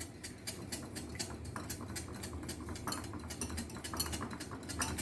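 Beaten eggs being whisked in a bowl: a utensil clicking quickly and steadily against the bowl's side, several strokes a second.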